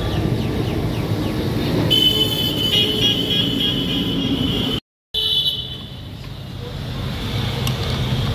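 Street traffic: motor vehicle engines running, with horns honking about two to three and a half seconds in. The sound drops out for a moment about five seconds in.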